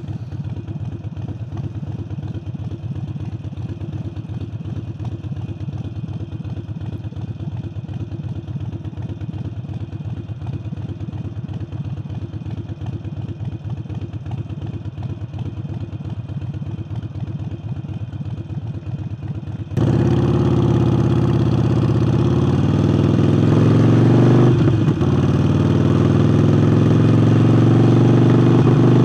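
Harley-Davidson Forty-Eight's air-cooled V-twin engine running with a new air intake, a steady pulsing beat. About two-thirds of the way through, the sound abruptly becomes much louder and fuller.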